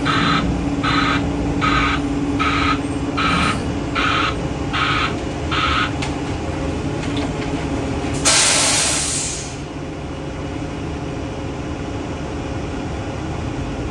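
Concrete mixer truck's reversing beeper sounding about eight evenly spaced beeps, a little faster than one a second, stopping about six seconds in, over the diesel engine's steady running. About eight seconds in, a loud hiss of the truck's air brakes lasts about a second.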